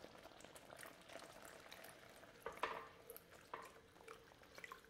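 Beef broth poured from a glass measuring cup into a cast-iron skillet of simmering steak and gravy: faint bubbling and liquid sounds, with a few soft clicks and pops.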